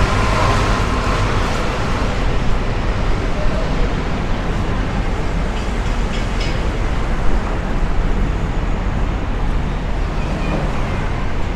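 Steady outdoor rumble of distant road traffic, with faint voices of people in the park.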